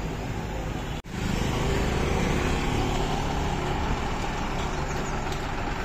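Street traffic noise: vehicle engines running steadily under a general road hum, with a brief break about a second in, after which it is a little louder.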